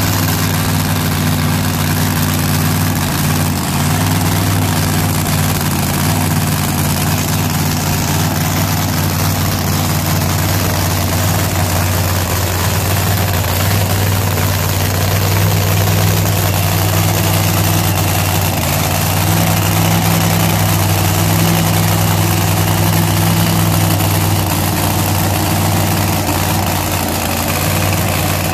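Outlaw 10.5 drag car's engine idling steadily through open side-exit headers during a pit warm-up.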